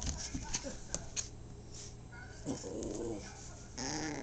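Young yorkie-poo puppy making soft, short whines, about halfway through and again near the end, over faint clicks and rustling.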